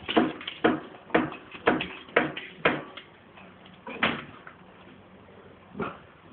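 A run of sharp knocks, about two a second for the first three seconds, then two more spaced further apart, as a small dog jumps and lands in its newspaper-lined wire pen.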